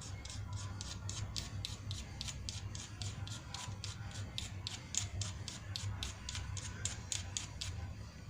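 Steel scraped hard and fast down a flint striker, about five quick strokes a second, throwing sparks to light a fire.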